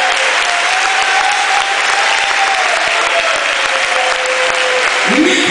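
A congregation applauding steadily, with a held tone underneath. A voice comes in near the end.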